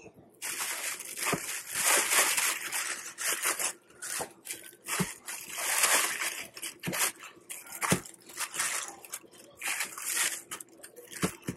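Plastic bag crinkling and rustling in irregular bursts as it is handled, with a few knocks.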